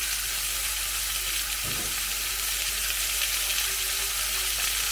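Food sizzling as it fries in a pan of hot leftover gyros fat, a steady hiss.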